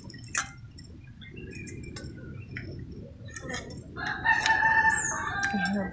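A rooster crowing once, a long held call of nearly two seconds starting about four seconds in, with a few faint taps before it.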